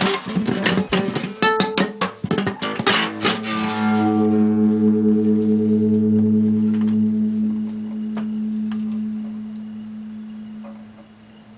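Five-string nylon-string acoustic guitar tuned to As, played fingerstyle: a quick run of plucked notes, then about three seconds in a final chord is struck and left to ring, fading slowly.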